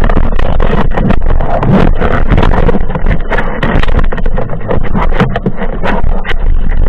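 Underwater noise picked up by a camera on a speargun as a spearfisher swims: a loud, steady rumbling rush of water with many sharp clicks and knocks scattered through it.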